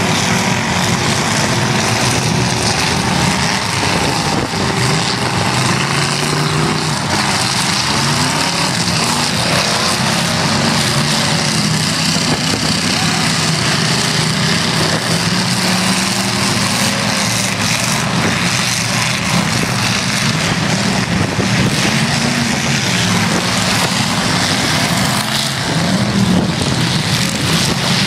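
Several demolition derby cars' engines running and revving at once, their pitches wavering up and down over one another, with a few brief knocks in the second half.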